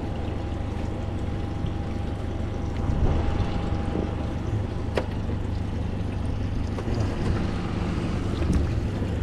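Tohatsu 150 outboard motor idling with a steady low rumble. There is a single sharp click about five seconds in.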